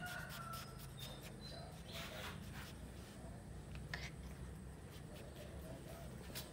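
A few short, high animal chirps in the first second and a half, then scattered sharp clicks and a brief scuffling rasp about two seconds in.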